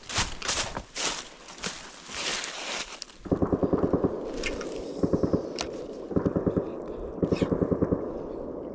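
Irregular crunching steps, then a spinning reel being cranked in four short bursts, a fast even whirring click from the turning handle and gears as line is retrieved.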